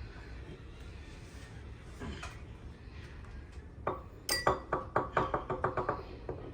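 Measuring spoon clinking against a mixing bowl while spices are measured in: one light knock about two seconds in, then a quick run of about a dozen ringing clinks, roughly six a second, starting about four seconds in and lasting about two seconds.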